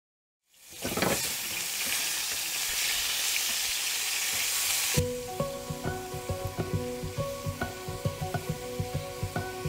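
Mushrooms and vegetables sizzling as they fry in pans, fading in from silence about half a second in. The sizzle gives way abruptly, about halfway through, to background music of short repeated notes over a beat.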